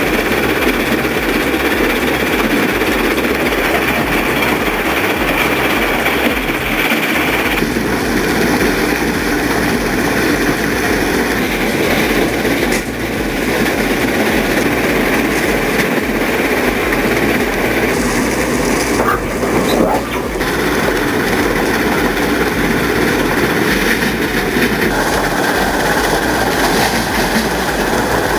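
Heavy recycling machinery running under load: a continuous, dense, loud grinding and rumbling noise. Its character shifts abruptly a few times.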